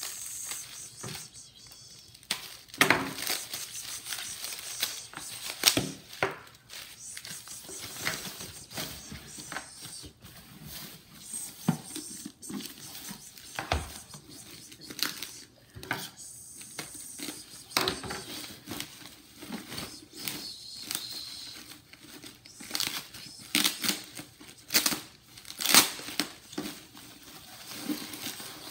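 Thin plastic packaging crinkling and rustling in irregular sharp crackles as hands unwrap a power cord and pull a rice cooker out of a plastic bag.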